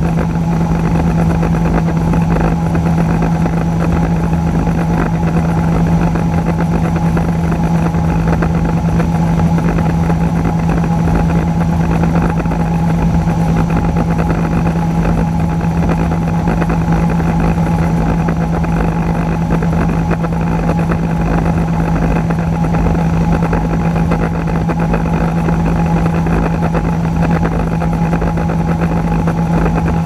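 John Deere 9600 combine running steadily at working speed while its unloading auger pours soybeans into a grain trailer: a loud, even mechanical drone with a constant low hum that does not change in pace.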